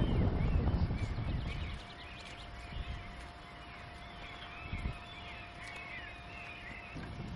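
A pony moving through long grass, with two dull hoof thuds about three and five seconds in, while small birds sing. A loud low rumble fills the first couple of seconds.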